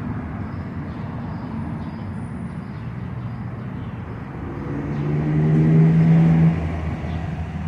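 Motor vehicle engine running in steady background traffic noise, growing louder about two-thirds of the way in and dropping off suddenly near the end.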